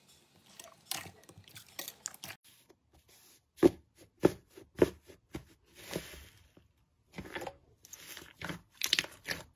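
Hands poking, pulling and squeezing slime, giving a run of sticky crackles and sharp pops, with three loud pops in quick succession near the middle.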